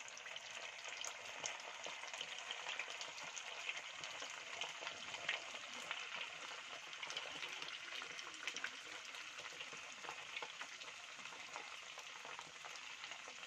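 Sabudana vadas (sago and potato patties) frying in hot oil over a medium flame: a steady sizzle peppered with many small crackling pops.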